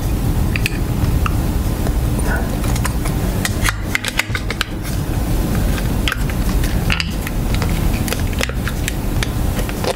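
Scattered hard plastic clicks and light knocks as the red lens and black plastic housing of a boat sidelight are fitted onto its base by hand, over a steady low hum.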